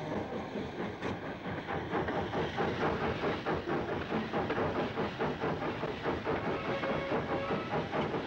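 Steam locomotive running past close by, hissing steam over a steady rhythmic chuff and clatter of its running gear on the rails.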